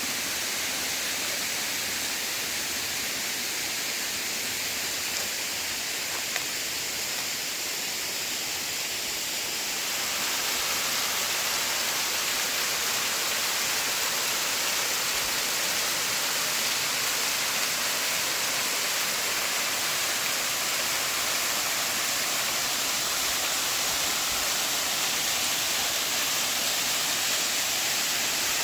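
Water rushing over a rainforest creek's cascades, a steady rush that gets louder and fuller about ten seconds in.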